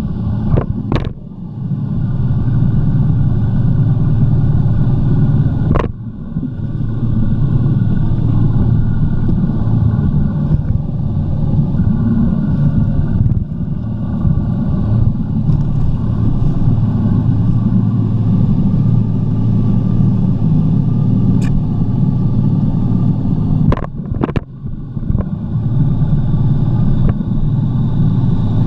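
Jet ski engine running steadily at speed, a loud, even hum. It dips briefly a few times, about a second in, around six seconds and again near the end, with short sharp knocks at those dips.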